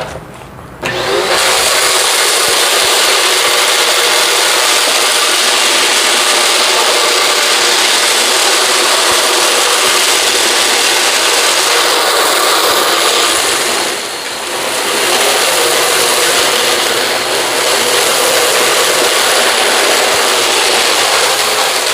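Dirt Devil VersaVac vacuum switching on about a second in and running steadily as it sucks up a mess of dirt and kitty litter, dipping briefly once partway through.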